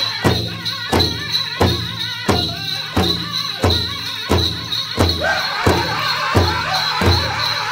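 Powwow drum song: a big drum struck in a steady beat, about one and a half strokes a second, with voices singing over it; a higher singing line comes in about five seconds in.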